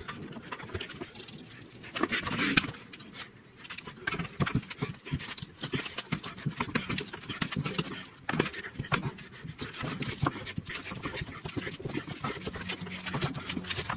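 Large steel C-clamps being cranked tight by hand on a leaf spring pack, compressing the add-a-leaf into the stack: the threaded screws turning and the sliding T-handles clicking and knocking in many irregular taps.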